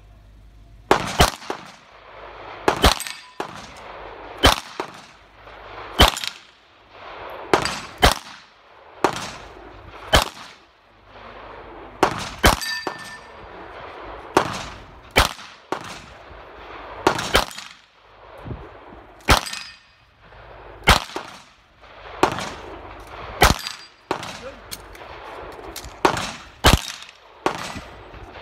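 Handgun shots fired singly at an irregular pace, about one to two seconds apart, each sharp crack followed by a short ringing tail.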